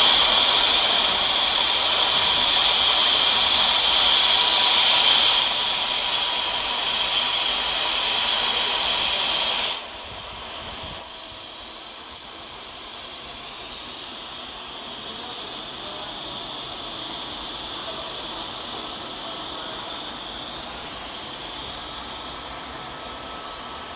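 Steady hiss of a TIG (argon) welding arc, with a faint steady whine under it. About ten seconds in it drops abruptly to a quieter, even hiss.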